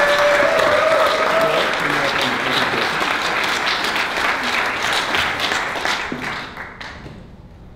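Audience applauding after a presentation, dense clapping with one long held call from the crowd in the first second or so, the applause dying away about six to seven seconds in.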